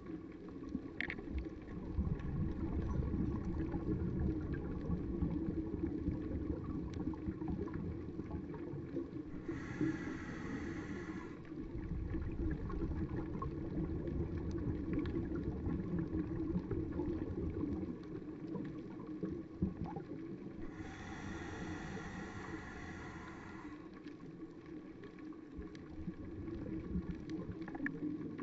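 Underwater ambience heard through a submerged camera: a steady low rush of moving water, broken twice by a buzzing sound lasting a few seconds, once about ten seconds in and again, for longer, a little after twenty seconds.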